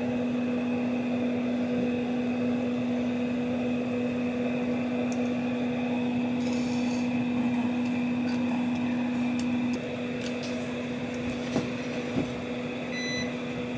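Steady electric hum of a household appliance, which drops in level about ten seconds in, with two light knocks near the end.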